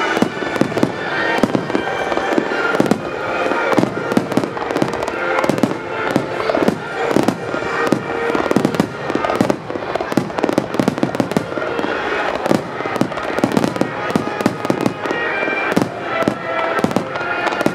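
Fireworks display in a dense barrage, with aerial shells bursting in quick succession: many overlapping bangs and crackles with hardly a gap.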